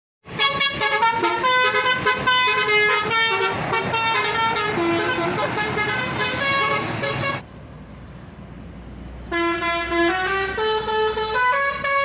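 Basuri V3 telolet multi-tone bus horn playing a quick stepping melody of several notes. It breaks off for about two seconds past the middle, leaving only a low rumble, then plays again.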